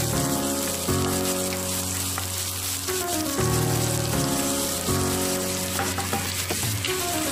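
Chopped onions sizzling in hot oil in a wok as they are stirred with a wooden spatula, at the start of sautéing them to golden brown. Background music with held notes plays over it.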